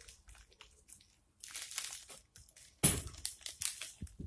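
Plastic snack wrapper crinkling in irregular bursts as it is handled, loudest a little under three seconds in.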